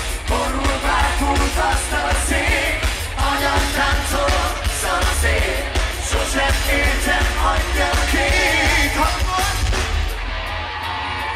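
Live rock band playing with a singer, heard from inside the crowd through a phone's microphone, with heavy bass. About ten seconds in the highest sounds drop away.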